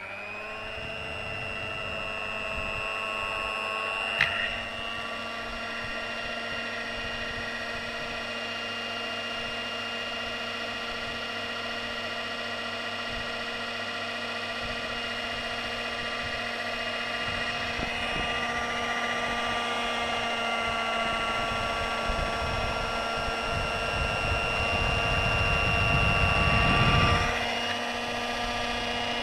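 Electric cloth-cutting machine starting up and running with a steady motor whine, a sharp click about four seconds in. Toward the end a rougher, louder stretch builds as the blade works through the scuba fabric, then drops off suddenly while the motor keeps running.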